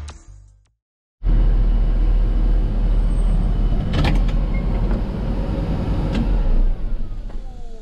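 Music fades out, then after a short gap a vehicle engine runs with a loud low rumble, with a couple of sharp clicks; near the end its pitch falls and it quietens as it slows down.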